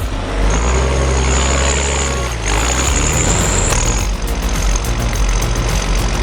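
Heavy machinery engine running steadily, with a thin high whine above it; the sound shifts a few times.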